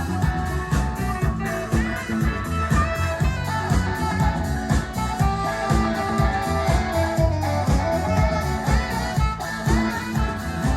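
Live band playing an instrumental passage: guitar over bass and a steady drum beat.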